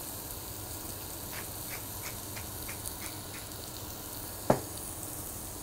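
Beef striploin and tenderloin sizzling steadily in a frying pan and a grill pan, with light grinding clicks, about three a second, from a wooden pepper mill turned over the meat, and one sharp knock about four and a half seconds in.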